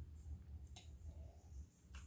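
Faint sounds of a person drinking from a coffee mug: two short mouth clicks, one under a second in and one near the end, over a low steady hum.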